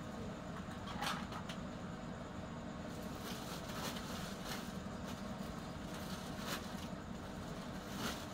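Woven plastic sack rustling and scrap computer motherboards clicking and clattering as they are packed into it by hand, a few sharp knocks among the rustle, over a steady low hum.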